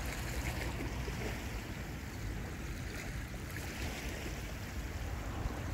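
Wind buffeting the microphone, a low uneven rumble over a steady soft hiss.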